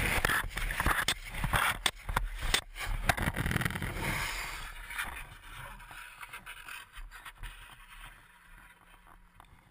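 A motorcycle crash on asphalt: a rush of scraping with a string of sharp knocks as the rider and the camera tumble and slide along the road. It dies down after about four seconds and fades to faint as they come to rest.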